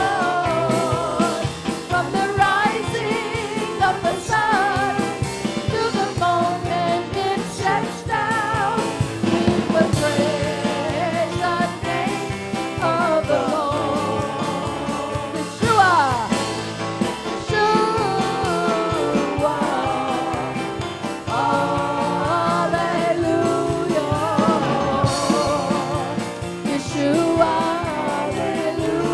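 Live worship band playing a praise song, with voices singing over drums and instruments.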